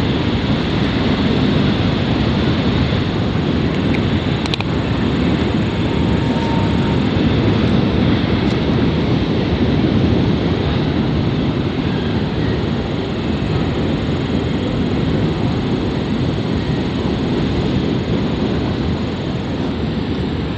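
Loaded coal hopper cars of a freight train rolling past on the track, a steady rumble of steel wheels on rail.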